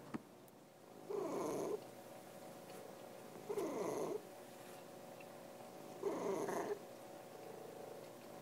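Domestic cat purring in three rough, rumbling bursts, each under a second long and about two and a half seconds apart.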